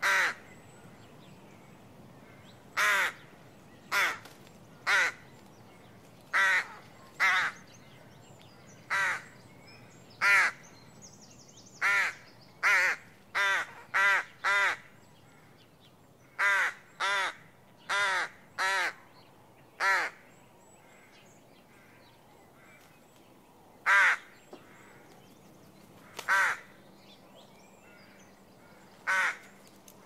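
Adult rook cawing: about twenty short single caws, irregularly spaced, coming thick and fast between about twelve and twenty seconds in, then only a few more with longer gaps.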